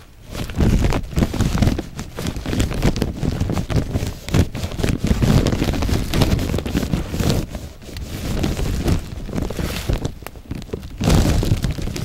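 Wind and handling noise rumbling on a handheld camera's microphone, rising and falling unevenly, with crackles of footsteps on leaf litter and brushing through plants.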